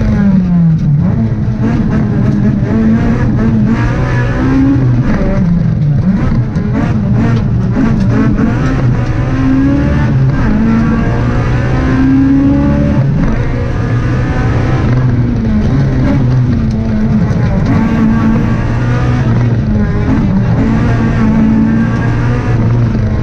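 Honda Civic Type R rally car's four-cylinder engine heard from inside the cabin at stage pace, its note repeatedly climbing as it is revved hard and dropping back on gear changes and lifts, over steady road and tyre noise.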